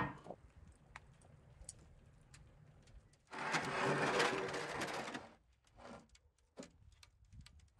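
A metal baking tray scraping across the stone floor of a brick wood-fired oven for about two seconds as it is dragged out with a metal hook-rake, after a sharp knock at the start and followed by a few small clicks.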